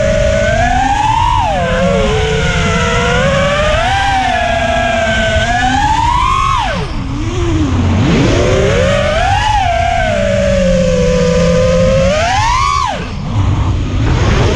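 FPV quadcopter's brushless motors whining, the pitch rising and falling with the throttle; they drop away about six and a half seconds in and again near the end, then rev back up. A low rumble of wind and prop wash runs under it.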